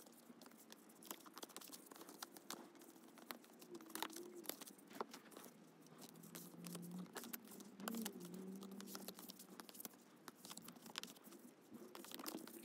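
Glossy photocards handled and sorted by hand: faint, irregular clicks and slides as cards are pulled from one stack and tapped onto another.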